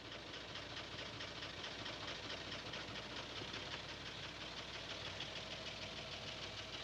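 A car engine idling, with a fast, even ticking.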